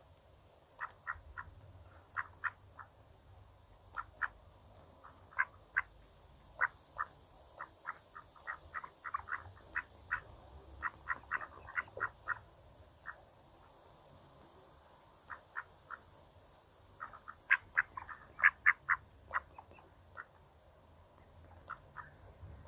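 Mallard ducks feeding: many short, sharp clicks and soft calls, scattered irregularly and at times several a second, with the loudest cluster toward the end.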